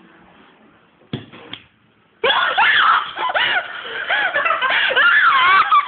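High-pitched screaming and squealing voices mixed with laughter, breaking out suddenly about two seconds in and staying loud to the end: startled shrieks as a moth flies up.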